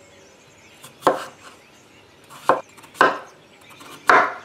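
Kitchen knife cutting peeled raw potatoes into chunks on a wooden cutting board: four chopping strokes at uneven intervals, each ending in a knock on the board.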